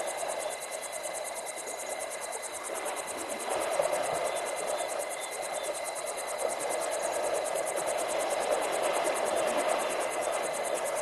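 Water swishing and splashing as a herd of African elephants wades and swims through a river. It grows louder about a third of the way in, with a fast, even high-pitched pulsing running underneath throughout.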